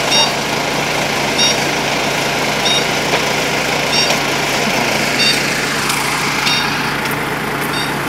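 Parked fire engines' diesel engines idling with a steady rumble. A short, high electronic beep repeats about every second and a quarter until shortly before the end.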